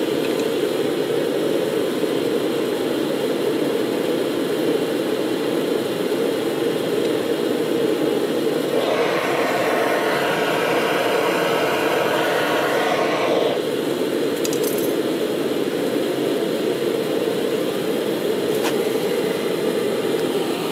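Small metal-melting furnace's burner running with a steady rushing noise, heating a crucible of cast iron to melting. From about nine to thirteen seconds in, a brighter hiss joins it.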